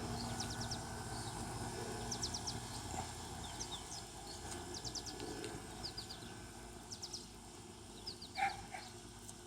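Small birds chirping outdoors: quick groups of three or four short high notes, repeated every second or so over a low steady background rumble, with one louder short sound near the end.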